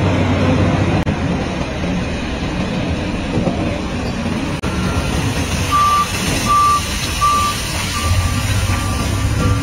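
Large electric mining rope shovel digging into blasted coal with its toothed dipper and swinging the load, a loud, steady machinery noise with a low rumble. From about six seconds in, a warning beeper sounds about once every two-thirds of a second.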